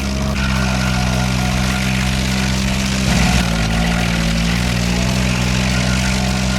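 Old truck's heavy engine running steadily, its pitch shifting briefly about three seconds in.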